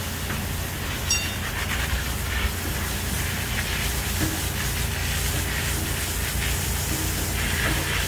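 Steady construction-site machinery noise: a constant low hum under an even hiss. A single short metallic ring sounds about a second in.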